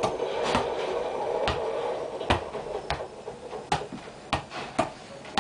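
A football being juggled by a sock-footed player, a soft thud each time foot or knee strikes the ball, about eight touches at an uneven pace of roughly one every half second to a second.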